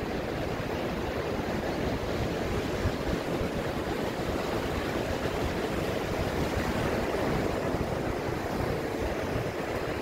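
Ocean surf breaking offshore and washing up a sandy beach, a steady, continuous rush of waves.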